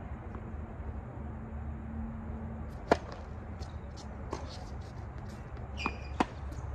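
Tennis ball struck back and forth by rackets in a rally, each hit a sharp pop. The loudest pop comes about three seconds in, fainter pops follow from the far end, and a second loud pop comes near the end as the near player hits a forehand.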